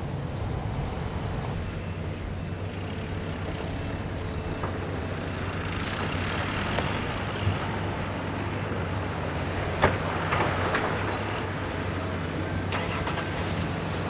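A vehicle engine running steadily, with a sharp click about ten seconds in.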